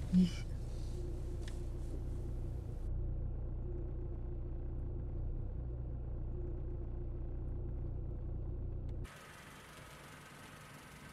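Steady low rumble of engine and road noise inside a moving car's cabin. About nine seconds in it cuts off abruptly to a quieter, even outdoor hiss.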